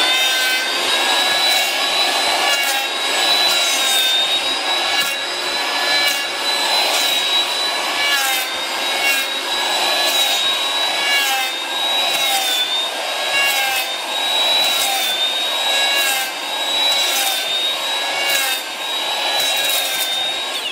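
Makita 1002BA curved base electric planer running at full speed with a steady high whine. Its curved radius blades bite into wood in short, repeated strokes about once a second, cutting a scalloped, adze-like herringbone surface.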